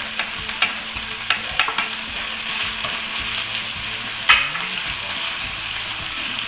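Macaroni and grated carrot sizzling in butter in a nonstick frying pan, stirred with a spatula that taps and scrapes against the pan. There are several light knocks in the first two seconds and a louder one about four seconds in.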